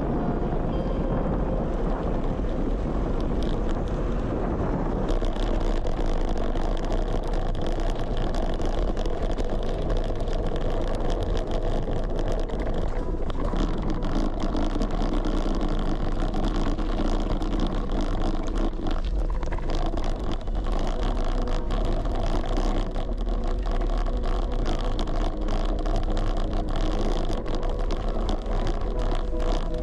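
Wind buffeting and rumbling on a camera microphone with no wind suppression during a bicycle ride, a loud steady rush with constant low rumble.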